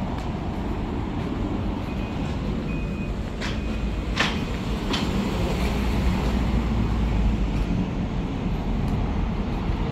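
Steady low rumble of background noise in a car workshop area, with three sharp knocks or clacks at about three and a half, four and five seconds in.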